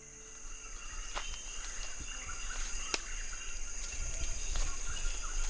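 Forest ambience: insects keeping up a steady high-pitched hum, with a few short sharp clicks and a low rumble underneath.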